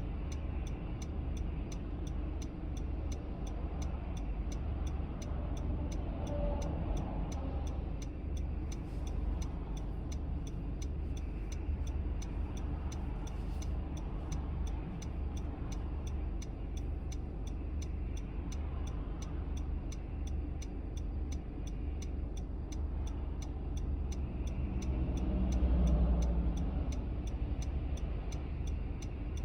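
A car driving, with a steady low rumble of engine and road noise. A faint, even ticking runs over it at about two ticks a second. The rumble swells briefly about 26 seconds in.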